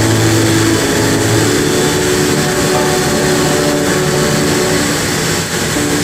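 Blown-film extrusion line running: a loud, steady rush of machine and blower noise with a low steady hum beneath it.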